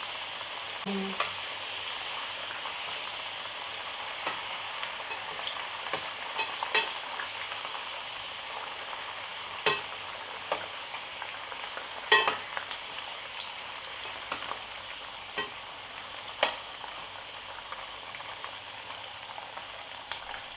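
Potato slices sizzling steadily as they fry in a pan of hot refined oil, with occasional sharp clicks of a utensil against the pan as the slices are turned over.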